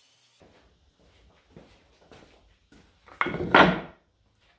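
Maple and sapele boards being handled on a workbench: a few light knocks and rubs of wood, then a louder clatter of wood on wood about three seconds in.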